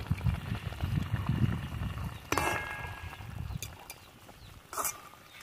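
Metal spatula stirring fish curry in a steel wok, with a low rumble for the first two seconds. The spatula clinks sharply against the pan twice, about two seconds in and again near the end, with a short ring.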